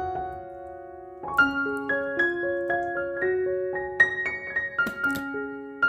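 Background piano music: a slow melody of single notes, each ringing on and fading.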